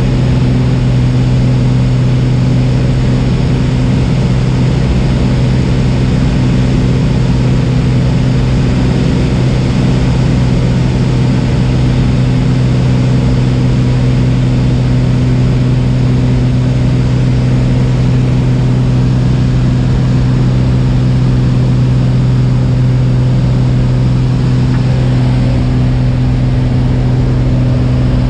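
Piston engine and propeller of a high-wing light aircraft droning steadily at constant power, heard loud from inside the cabin with a rush of air noise.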